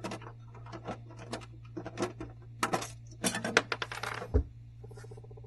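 Sheet-metal rear panel and thumb screws of a Xerox Phaser 8560 printer being handled as the panel is opened and taken off: scattered metallic clicks and clinks with short scrapes, busiest in the middle, and a dull thump about four seconds in.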